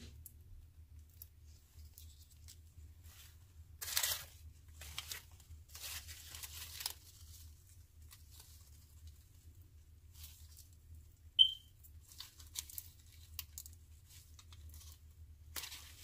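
Tags being pulled and torn off artificial flower stems, with rustling of the stems and foliage in scattered short bursts. One sharp click about eleven seconds in is the loudest sound.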